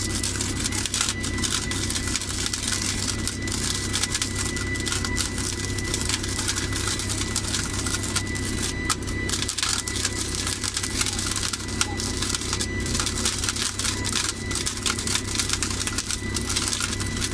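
Electric flash butt rail welder flashing: a dense, irregular crackle of sparks as current arcs between the two rail ends pressed together, over a steady low machine hum.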